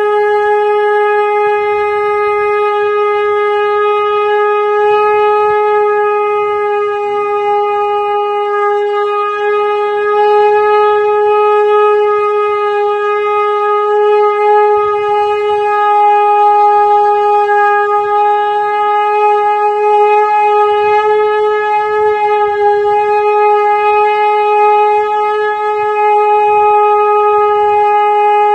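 Conch shell (shankha) blown in one long, steady, unbroken note, held on without any break for breath.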